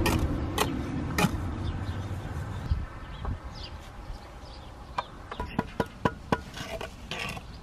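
Steel trowel scraping and knocking as mortar is spread on the ground for a brick. From about five seconds in come a run of sharp, ringing taps, two or three a second, as the brick is tapped down into its mortar bed beneath a spirit level to set it level.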